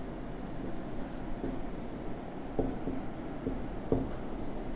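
Marker pen writing on a whiteboard: soft strokes of the pen tip, with a few light ticks in the second half.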